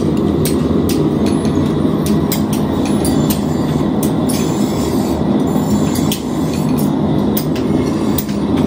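A forge running: a steady low rumble of fire and air, with scattered sharp clicks and ticks over it.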